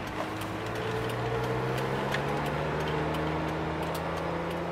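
Suzuki Jimny's engine running under light throttle, heard from inside the cabin, its note rising slightly and holding steady, with road noise underneath.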